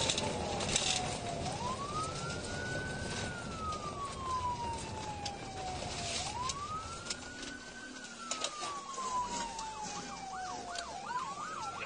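Police car siren on wail, a single tone rising and then falling slowly, about once every five seconds, over steady road noise from the moving car. A faster yelping tone comes in faintly near the end.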